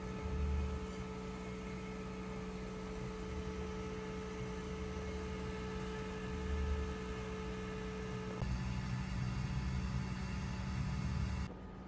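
Steady electrical hum made of several fixed tones over a faint hiss, with a few low rumbling bumps. The hum's pitch pattern changes abruptly about eight seconds in, and the hiss drops near the end.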